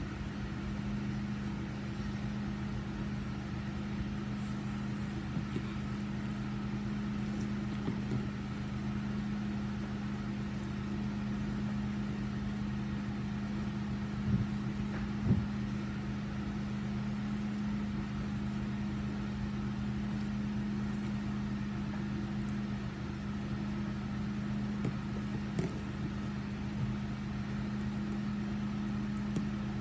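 A steady, low, even hum, like a motor running, with two short knocks about halfway through and a few faint clicks near the end.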